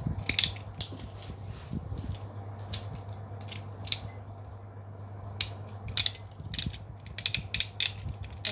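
Irregular sharp plastic clicks and clacks of Beyblade tops being handled and switched into turbo mode, over a low steady hum.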